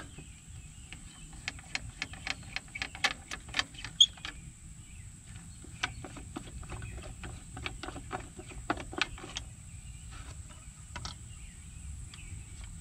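Small clicks and taps of thumb nuts being unscrewed and the Rolls-Royce 20/25's fuse box cover being worked loose and lifted off, with one sharper knock about four seconds in.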